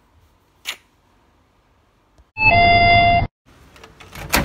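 A loud electronic chime over a hiss, lasting about a second and cutting off suddenly, followed about a second later by a sharp click.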